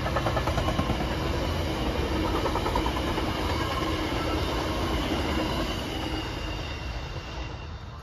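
Virginia Railway Express commuter train's bilevel passenger cars rolling past: a steady rush of wheel and rail noise with a few thin steady high tones in it. It fades over the last couple of seconds as the end of the train goes by.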